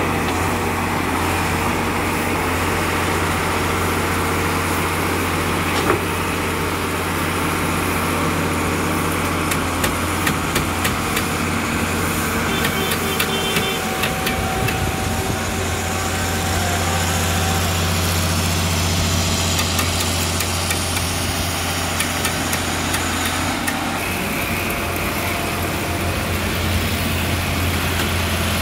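Engine of a rail-mounted track-relaying gantry machine running steadily with a low hum, with a few light clicks in the middle.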